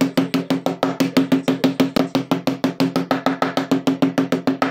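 Wooden mallet tapping rapidly on the ends of the battery cells seated in a plastic cell holder, about nine even strikes a second, each with a short low ring. The tapping stops suddenly at the very end.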